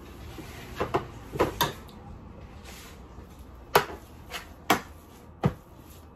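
A utensil knocking and scraping against a baking pan while shredded chicken and cream cheese are mixed: about ten short, sharp clicks at irregular intervals, in two clusters.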